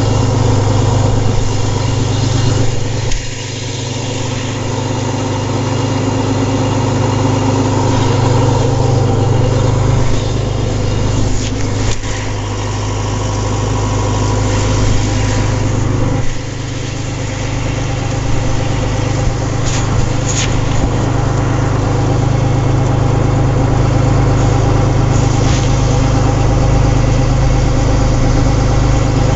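Large engine of farm machinery running steadily at a constant speed, with the sound dropping in level briefly a few seconds in and again about halfway.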